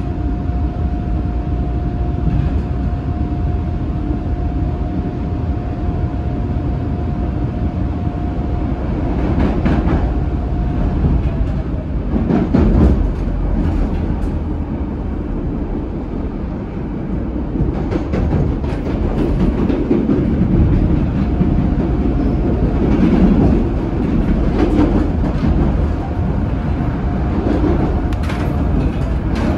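CTA Brown Line "L" train running between stations: a steady rumble of wheels on rail with a steady high whine from the drive that fades out about ten seconds in and returns near the end. There are a few sharp clicks, as over rail joints.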